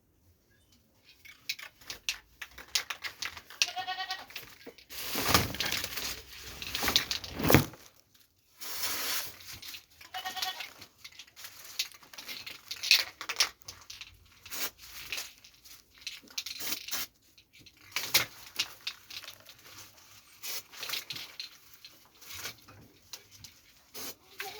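Goat bleating twice, short calls about 4 and 10 seconds in, while its infested foot is handled, with a loud rustling, scuffling stretch and scattered clicks around the calls.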